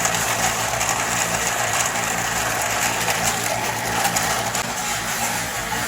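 Metalworking machinery running steadily, with a constant low motor hum under a dense noise.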